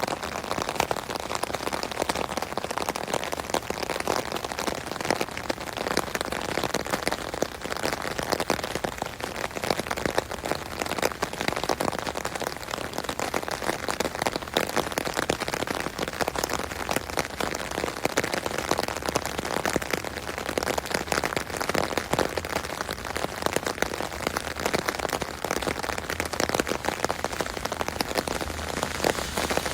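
Rain falling on an umbrella canopy, heard from underneath: a dense, steady patter of many drops striking the fabric overhead.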